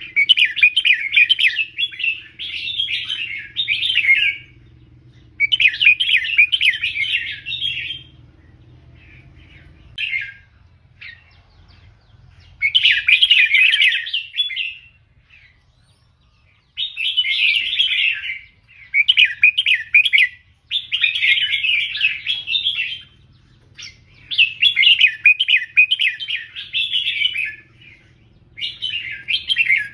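Red-whiskered bulbul singing: bubbly, chattering song phrases of a second or two each, repeated with short pauses and one longer break partway through.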